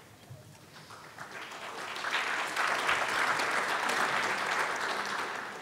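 Audience applauding, building up about a second in and fading away near the end.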